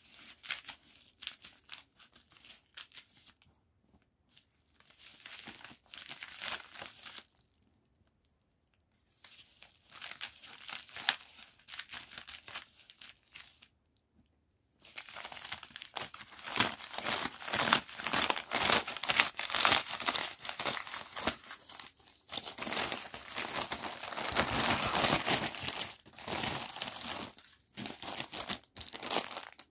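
A plastic mailer bag is cut open with scissors and then handled, crinkling and rustling in short, broken stretches. About halfway through, a long, louder run of plastic crinkling begins as a mask in a clear plastic bag is pulled out of the mailer and handled.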